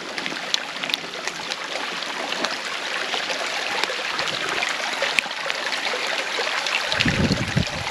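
Rainwater running down a drainage ditch: a steady rush of flowing water that grows slightly louder. A low rumble joins near the end.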